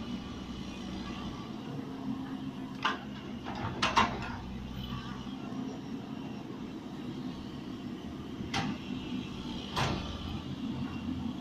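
Excavator's diesel engine running steadily, with several sharp knocks from the machine as it digs, the loudest about four seconds in.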